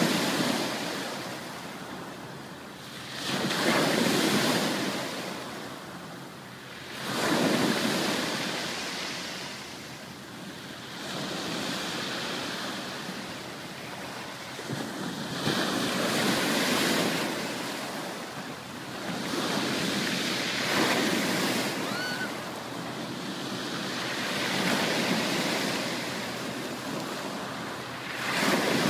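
Ocean waves breaking and washing up a beach, each surge swelling and easing back every three to five seconds.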